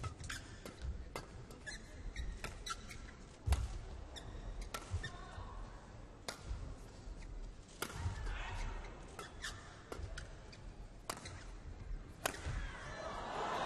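A badminton rally: sharp racket strikes on the shuttlecock at irregular intervals, about once a second, with shoe squeaks on the court floor. Near the end a crowd starts cheering and applauding, growing louder as the rally ends.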